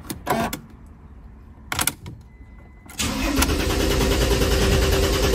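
A couple of short clicks, then about three seconds in the starter motor of a Mercedes W211 diesel cranks the engine steadily in a fast, even rhythm without it firing. This is a crank-no-start, which the mechanic traces to a CAN bus fault.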